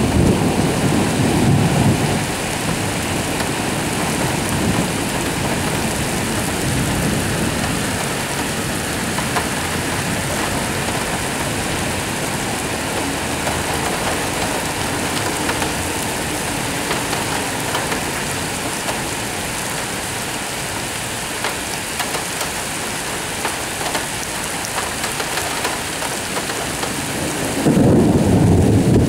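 Heavy rain pouring steadily in a thunderstorm, with thunder rumbling in the first couple of seconds and again just before the end.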